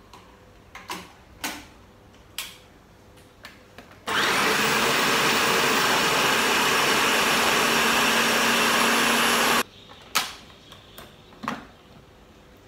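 Bosch food processor running at full speed for about five seconds, blending frozen banana, spinach and coconut water into a thick smoothie. It starts suddenly about four seconds in and cuts off just as suddenly. Before and after it, a few light clicks and knocks as the machine is switched on at the wall and handled.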